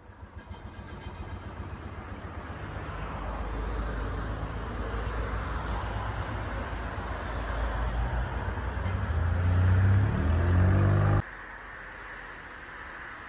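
A motor vehicle's engine growing steadily louder as it comes closer, its pitch rising near the end. It cuts off abruptly about eleven seconds in, leaving a quieter steady rumble.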